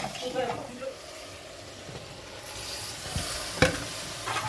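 Food sizzling in a pan while it is stirred, with a sharp knock of a utensil about three and a half seconds in.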